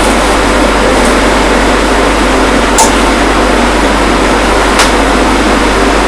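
Loud steady hiss with a constant low hum underneath, broken by two short sharp clicks about two seconds apart.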